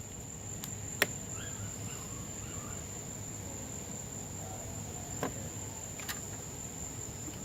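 Steady high-pitched trill of crickets, with a few sharp clicks.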